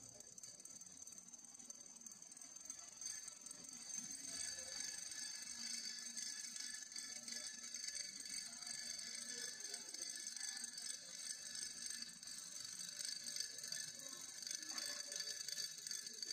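Small glass Hero's engine (Furukawa type) spinning under steam on its wire hook: a fast, steady rattle with high steady tones over it, growing louder during the first few seconds.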